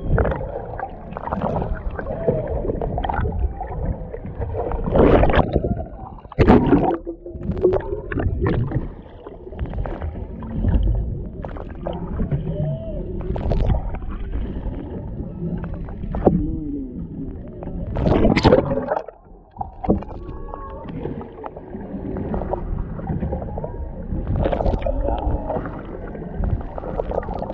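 Humpback whale song heard underwater through a camera microphone: moans that glide up and down in pitch, over a constant rush of water noise. Two louder rushes of noise cut in, about six seconds in and again around eighteen seconds.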